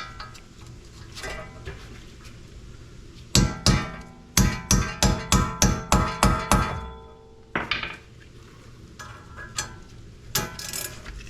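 Hammer blows on steel, with metallic ringing: a single strike, then a quick run of about eight strikes at roughly three a second, then a few lighter knocks. They come while the rusted bolts of a wheel hub assembly are being freed.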